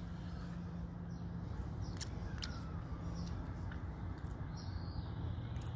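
Quiet outdoor ambience: small birds chirping faintly every second or so, a few sharp clicks, and a low steady hum underneath.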